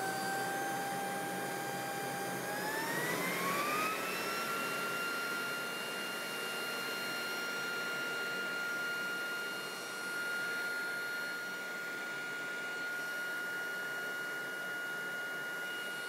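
Small electric blower driving a homemade venturi, running with a steady whine over rushing air. About three seconds in it speeds up: the whine climbs to a higher pitch over a second or two, then holds steady.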